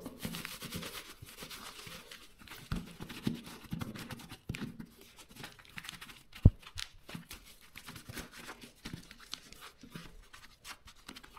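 Disinfectant wipe rubbing over leather boxing gloves: soft scattered rubbing and handling noises, with one sharp knock about halfway through.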